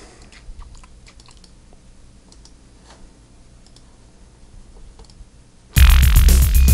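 Faint, scattered clicks of a computer keyboard and mouse for about five seconds, then loud music starts suddenly near the end.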